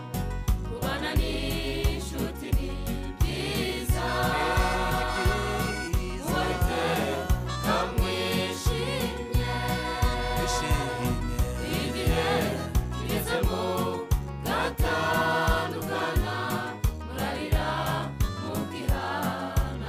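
Gospel choir singing a song in Kinyarwanda in several voices over a backing track with a steady beat.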